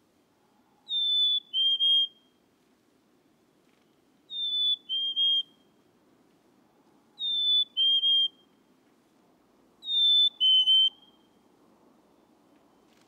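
Black-capped chickadee singing its whistled fee-bee song four times, about every three seconds: a clear higher note sliding slightly down, then a lower note, sometimes broken in two.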